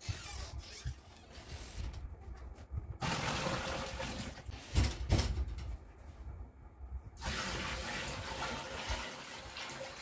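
Water poured from a small bucket into the tub of a single-tub washing machine, in two pours of a few seconds each, with a couple of sharp knocks about halfway through.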